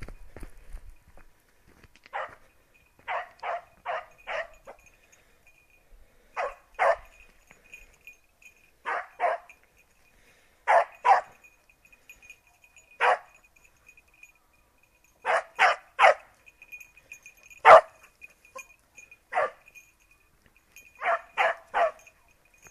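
Young beagle × petit basset griffon vendéen cross hound giving tongue on a rabbit's trail: short, sharp barks, sometimes single and sometimes in quick runs of two to five, coming every second or two.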